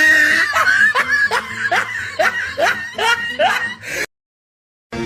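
A meme laugh sound effect: a quick run of about nine 'ha's over a low bass line, cutting off suddenly about four seconds in. Near the end a short music jingle begins.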